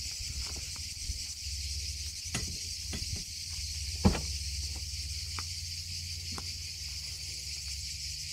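Rear doors of a Mercedes Sprinter van being opened: a few clicks and clunks from the latch and doors, the loudest about four seconds in, over a steady high drone of insects and a low steady hum.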